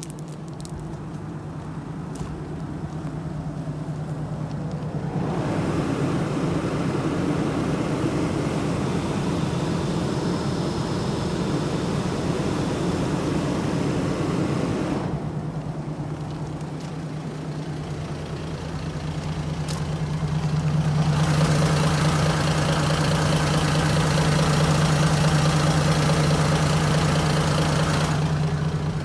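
Mitsubishi Aero Midi bus's 6D17 inline-six diesel engine idling steadily, swelling louder twice for several seconds at a time.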